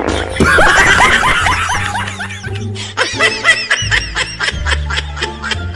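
Laughter, a quick run of snickering 'ha-ha' bursts, over background music with a steady bass line.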